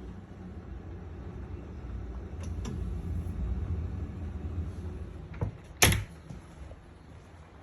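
Low rumbling handling noise with a couple of light clicks, then a door or cupboard shutting with a sharp knock about six seconds in.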